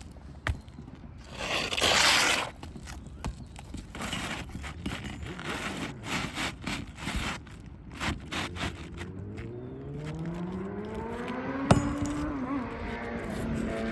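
Scraping and clicking handling noises, with a loud rushing burst about two seconds in. Near the end a motor winds up, rising in pitch over a few seconds and then holding steady.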